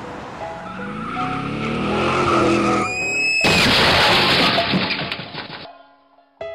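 A car engine revving higher, then tires screeching and a loud crash with breaking glass that cuts off sharply; music plays underneath.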